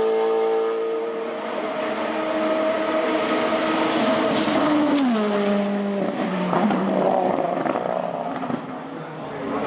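Drift car's engine running hard at steady high revs, its pitch falling about five seconds in, followed by a rougher, noisier stretch of engine sound.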